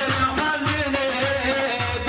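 Kurdish folk dance music with a steady drum beat, about two beats a second, under a wavering, sustained melody line.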